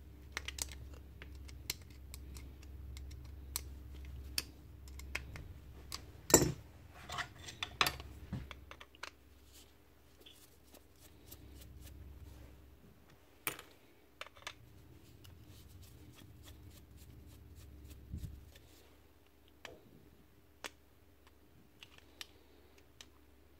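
Screwdriver and pick scraping and prying packed hair and dung out of a cattle clipper head, with scattered clicks and light knocks of metal tools and plastic parts on the workbench; the loudest knock comes about six seconds in.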